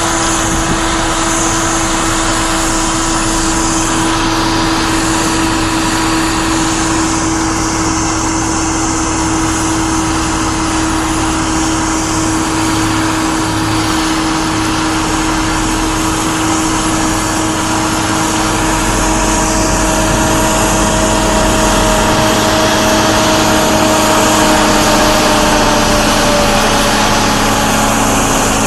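John Deere 8410 tractor's six-cylinder diesel engine running steadily with a whine, its pitch sagging a little over the last several seconds.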